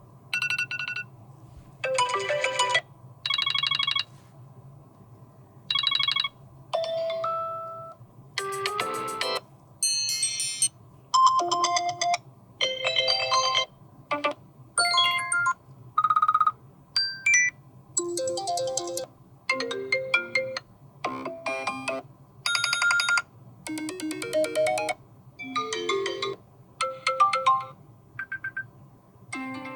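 iPhone SE (2022) playing its built-in alarm tones one after another: about twenty short snippets of a second or less, each a different melody or chime, with brief gaps between them.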